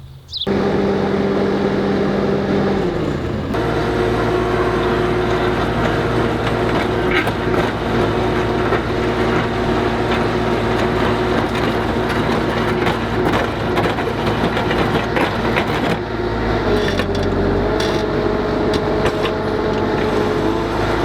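Skid steer engine running steadily under throttle, with a constant hum; its pitch shifts about three seconds in and again near the end.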